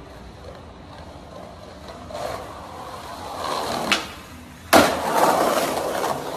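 Skateboard wheels rolling on concrete and building up, a sharp pop of the board about four seconds in, then a loud hard landing smack with rolling noise after it.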